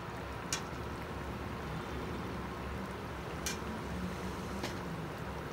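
Tomato-sauce beans simmering in a frying pan: a steady low bubbling, with three brief clicks.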